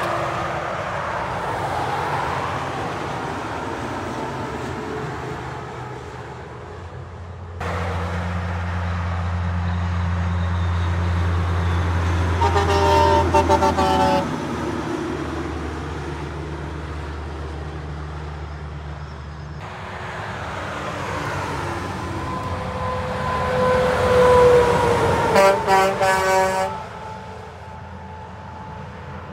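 Semi-trailer trucks passing on a motorway, their engine and tyre noise rising and falling as each goes by. A truck's air horn sounds in short toots about halfway through, and again near the end.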